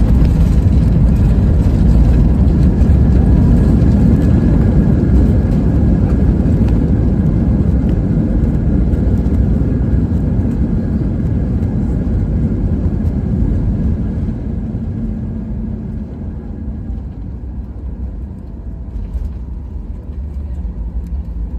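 Boeing 737 landing rollout heard from inside the cabin: a loud, steady rumble of engines and runway that fades about two-thirds of the way through as the airliner slows.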